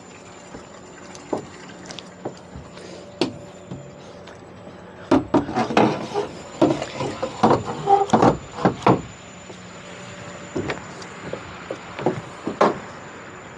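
Irregular knocks and clunks of someone moving about and handling gear on a boat's deck, bunched into a busy run in the middle, over a steady faint hum.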